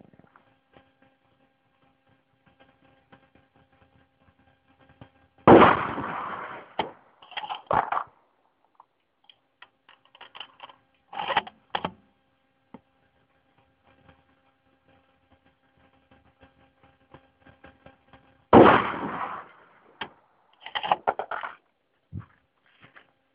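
Two shots from a Remington 700 SPS bolt-action rifle with a 20-inch barrel and muzzle brake, about 13 seconds apart, each trailing off in a short echo. Each shot is followed by a few metallic clacks of the bolt being worked, over a faint steady hum.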